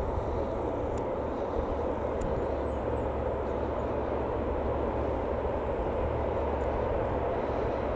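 Four Allison T56 turboprop engines of a Lockheed C-130H Hercules running, a steady drone with a low hum beneath it.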